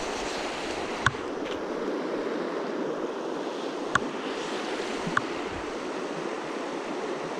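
River water rushing steadily over a gravel riffle, with three short sharp clicks about one, four and five seconds in.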